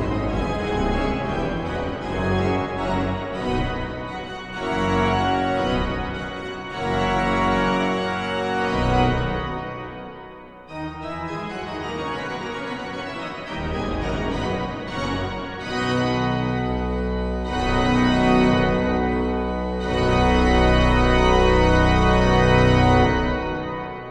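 Church pipe organ playing a piece in full sustained chords with deep pedal bass, building to a loud final chord that dies away in the church's reverberation near the end.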